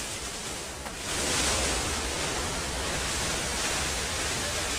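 Waterfall in full rainy-season flow: a steady rush of falling water that grows louder about a second in.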